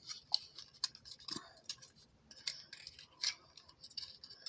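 Plastic dinosaur surprise egg being worked open by hand: faint, irregular clicks and scraping of plastic parts.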